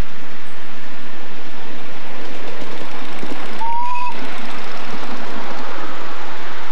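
Miniature ride-on steam locomotive approaching along the track, under a steady hiss, with one short whistle toot, slightly rising, a little over halfway through.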